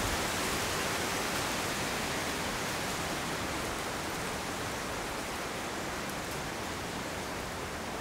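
Wind through the forest canopy, a steady rustling hiss of leaves that slowly eases.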